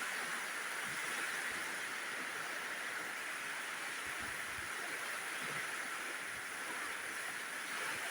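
Rain falling with a strong wind, a steady even hiss.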